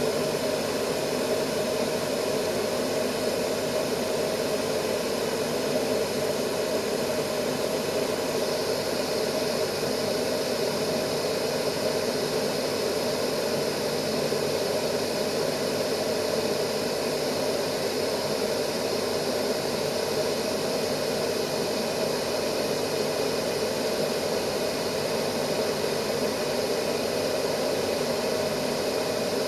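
Steady, unbroken white noise used as a baby sleep aid. It is a rushing hiss, strongest low in the middle range, with a faint brightening of the upper hiss about eight seconds in.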